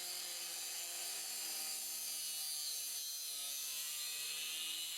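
Proxxon LHW/A cordless long neck angle grinder running and grinding, a steady high whine with grinding noise.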